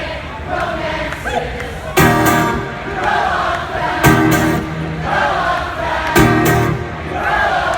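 Live rock concert sound: a crowd singing along in chorus over strummed guitar chords struck about every two seconds.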